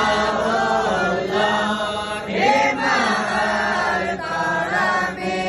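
A group of boys and young men chanting Arabic devotional verses in unison, a melodic chorus of male voices.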